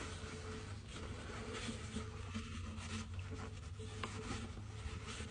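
Faint rubbing and scraping of hand work on parts, over a steady low hum.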